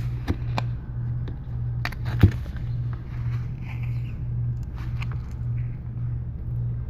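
A steady low hum with a slight regular pulse, under a few sharp clicks and faint scrapes as a thin metal iSesamo pry tool is slid under the iPad mini 3's glued digitizer glass; the loudest click comes about two seconds in.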